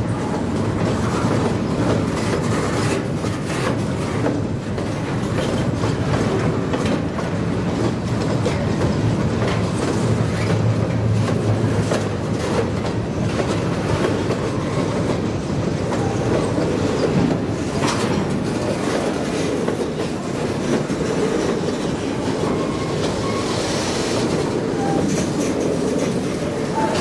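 Freight cars, covered hoppers and bulkhead flatcars, rolling past on the track with a steady rumble and repeated clacking of the wheels over the rail joints.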